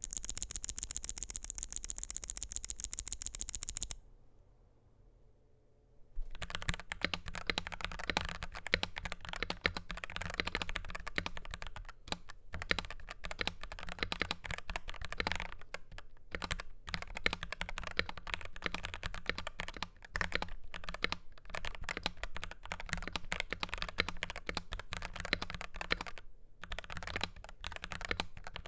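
Typing on a Dark Project KD83A mechanical keyboard with G3ms Sapphire switches, a stainless steel plate and PBT double-shot keycaps: quick keystrokes with short pauses, starting about six seconds in. Before that comes a rapid, very even run of sharp high clicks for about four seconds, then a short quiet gap.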